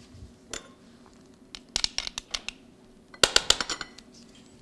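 Metal clicks of a hand garlic press squeezing a garlic clove over a glass bowl. About three seconds in comes a quick run of louder clinks, a metal fork tapping and scraping against the glass bowl.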